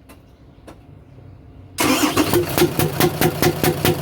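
Mitsubishi Fuso Fighter diesel engine starting: faint cranking, then it catches suddenly about two seconds in and runs with an even rhythmic knocking, about five knocks a second. The knock comes from a noisy exhaust valve whose rocker arm is not moving, the sign of a damaged camshaft lobe.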